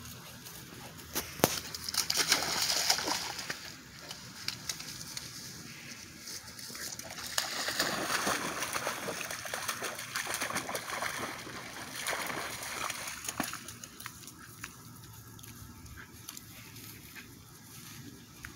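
A German shepherd puppy splashing and wading through shallow muddy water, in two bouts: a short one about two seconds in and a longer one from about seven to thirteen seconds in.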